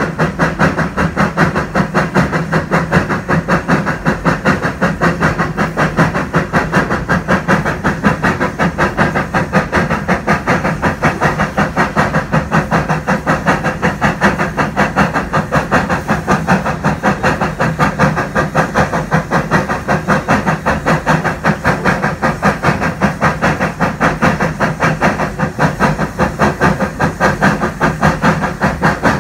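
1901 NA class 2-6-2 narrow-gauge steam tank locomotive working steadily under way, its exhaust chuffing in an even rhythm of about four beats a second over a continuous steam hiss.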